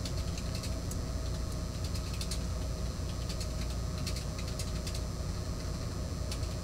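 Steady low background hum with a few faint clicks.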